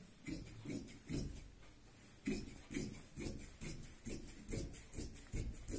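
Scissors snipping through cotton fabric in a run of short cuts, about two or three a second, with a brief pause about a second and a half in.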